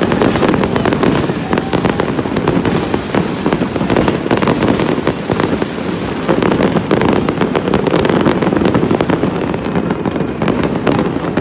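Aerial fireworks going off in a dense, continuous barrage of bangs and crackling.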